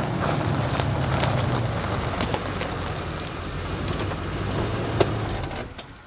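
SUV engine running steadily as the vehicle pulls in and stops, with a single click about five seconds in, then the engine shuts off just before the end.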